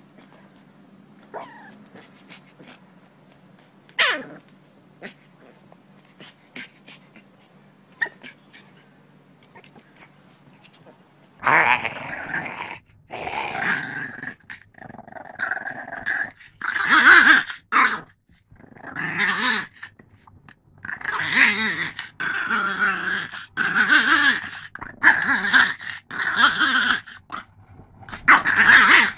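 French bulldog growling and grumbling in a long string of loud bursts, each lasting about a second. Before them come only a few faint rustles and clicks.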